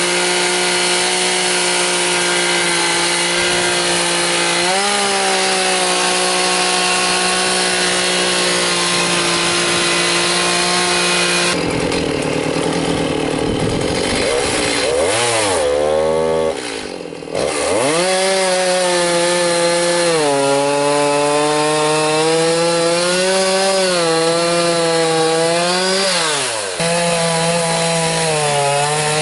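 Stihl Farm Boss chainsaw running at high speed while cutting a large dead pine. The engine note holds steady for the first third, then sags and climbs again several times, with a brief drop in level about halfway through.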